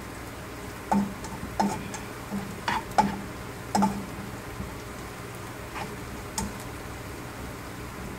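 Spatula clicking and scraping against a nonstick pan while crushed garlic and pepper are stirred in frying oil over a steady low sizzle. The clicks come several times in the first four seconds, twice more around six seconds, then stop.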